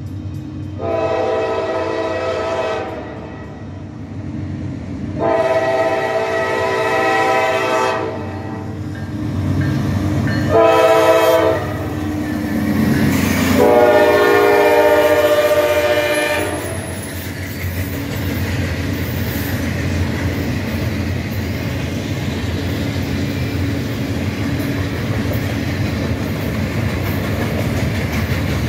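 Norfolk Southern freight locomotive's air horn sounding the grade-crossing signal, long, long, short, long, over the rumble of the train. After the last blast, about 16 seconds in, the train runs past steadily with wheels clicking over the rail joints.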